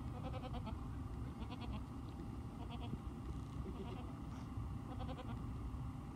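Goats bleating, short pulsing calls repeated about once a second, over a steady low rumble.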